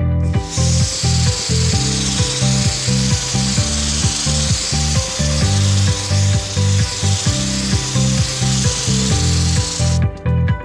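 Water from a garden hose spray nozzle hitting a dash-mounted touchscreen and the golf cart's dash, a steady hiss that starts about half a second in and cuts off near the end. Music with a steady beat plays underneath.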